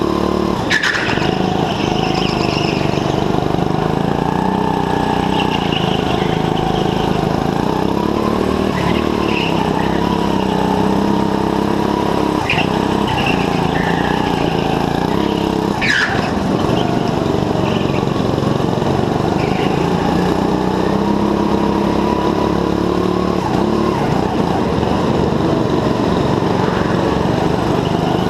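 Go-kart engine heard from on board, revving up and down as the kart drives through corners, with brief tyre squeals. Two sharp knocks stand out, one about a second in and one near the middle.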